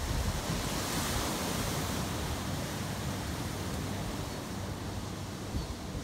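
Ocean surf breaking over rocky outcrops and washing up against a seawall: a steady wash of waves.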